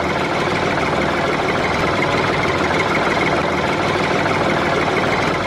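Toy tractor's motor running steadily as the tractor drives along, an even mechanical drone with a constant high whine.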